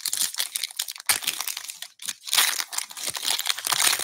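A foil trading-card pack wrapper from 2023 Bowman Baseball Hobby crinkling and tearing as it is pulled open by hand. It comes in irregular bursts, with a brief pause about two seconds in.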